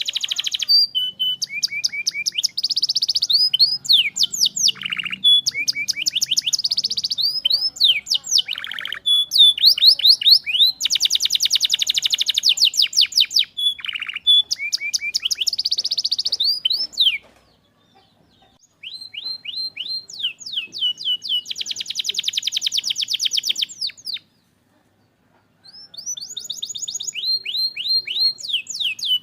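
Domestic canary singing a long, loud song of fast trills and rapid runs of repeated sweeping notes. It breaks off twice for a second or so, about two-thirds of the way through and again near the end.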